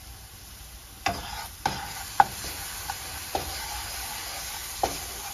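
Wooden spoon stirring and scraping onions, garlic and seasoning sautéing in butter in a nonstick skillet, over a steady sizzle. The spoon's knocks and scrapes start about a second in and come irregularly, with one sharp click the loudest.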